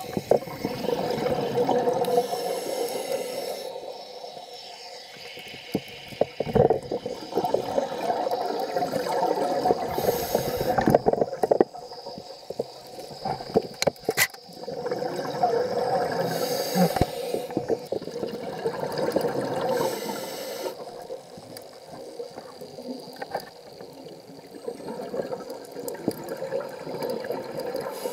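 Underwater sound picked up by a submerged camera: muffled water rushing and gurgling that swells and fades, with several sharp knocks and clicks scattered through it.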